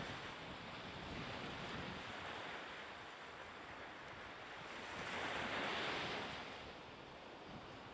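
Seaside ambience: wind and small waves washing on the shore, a steady hiss that swells about five seconds in and then eases off.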